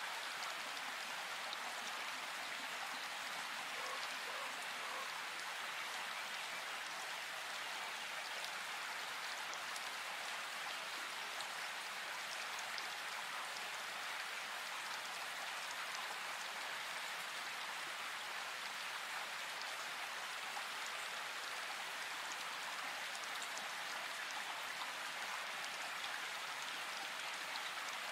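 A steady, even hiss like light rain, holding the same level throughout.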